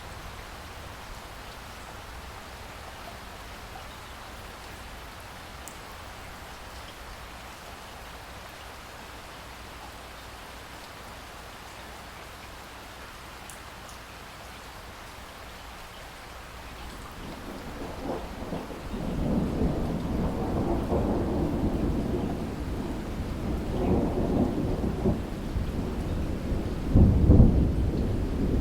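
Steady rain falling, then a long roll of thunder builds in about two-thirds of the way through and rumbles on, swelling loudest near the end.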